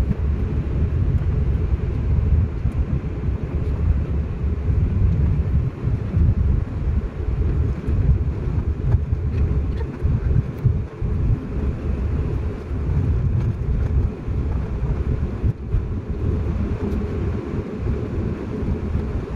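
Steady low rumble from inside a vehicle rolling across a concrete airport apron: its running engine and tyre noise.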